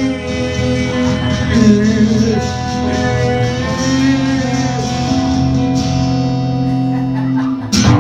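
Live acoustic band music: guitar playing long held chords with a sung melody over it, a brief break just before the end before the guitar comes back in.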